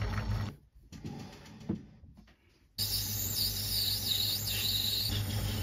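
A small metal lathe running with a steady hum while turning a brass part. About half a second in it drops almost to silence for about two seconds, with one faint knock, then comes back. Soon after, a few short high squeals come from the tool working in the bore of the spinning brass.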